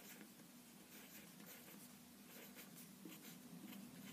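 Faint scratching of a pencil writing a row of digits on paper, in short irregular strokes.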